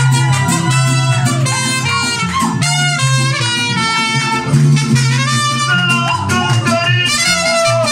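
Mariachi music with trumpets playing the melody over a steady bass line.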